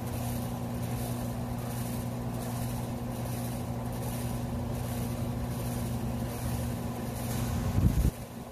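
Steady low mechanical hum, with a brief louder rumble near the end that cuts off sharply.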